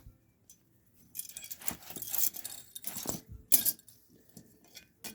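Small metal clinks and rattles of a door-latch rod and its retaining clip being worked against the latch inside a car door, with scraping in between and one sharp click about three and a half seconds in.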